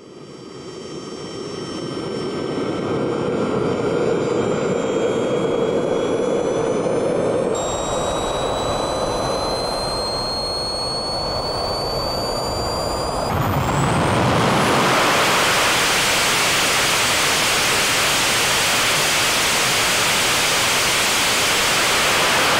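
Swiwin SW120B model turbojet engine running: a high turbine whine climbing slowly in pitch over a steady rush of air. About thirteen seconds in it suddenly gets louder and fuller, the whine still rising.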